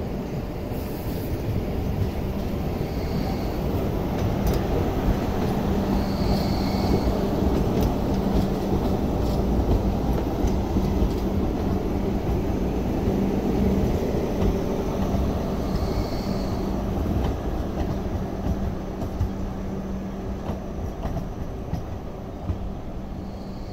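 Hong Kong MTR Light Rail two-car train rumbling past over the junction's points and rails with a steady hum. It grows louder as it comes close, about halfway through, then fades as it pulls away. A few brief high squeaks sound along the way.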